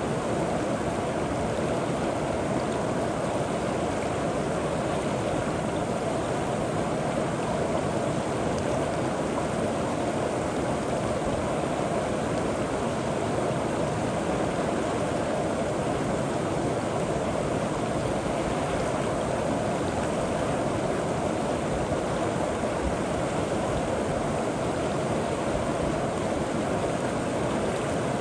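River water flowing over rocks, a steady even rushing and gurgling.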